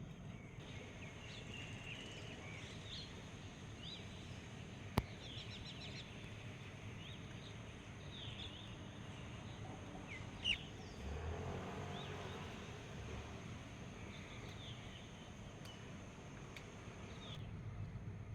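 Morning outdoor ambience of small birds chirping and calling now and then over a steady faint background hiss. There is a sharp click about five seconds in, and a brief low rumble a little after the middle.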